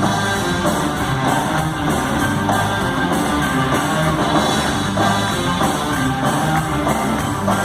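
Rock band playing live: guitars over bass and drums, loud and continuous.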